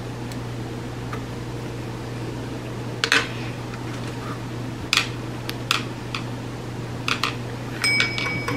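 A steady low hum, with a handful of sharp clicks and taps as a plastic fuel line and forceps are worked against a chainsaw's plastic housing.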